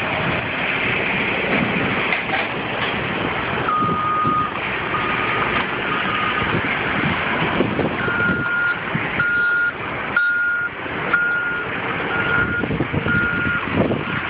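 Reversing alarms of heavy earth-moving machinery over a steady rumble of diesel engines. One alarm sounds about four seconds in, a long beep and then two short ones. From about eight seconds a second, higher-pitched alarm beeps about once a second.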